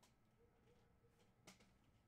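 Near silence with faint clicks of trading cards being handled: one at the start and a sharper one about a second and a half in.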